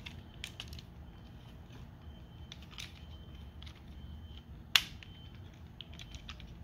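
Plastic parts of a Transformers Sandstorm action figure clicking and creaking as they are handled during transformation, with one sharp snap a little under five seconds in as a piece pegs into place.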